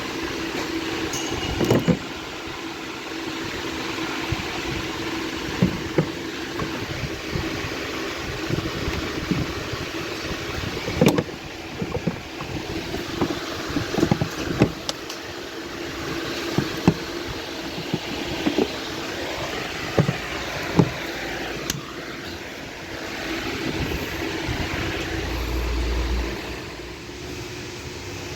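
Scattered metal clinks and knocks of hand tools refitting parts in a vehicle's engine bay, over a steady low mechanical hum.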